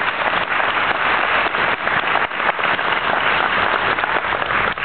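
An audience applauding: steady clapping of many hands.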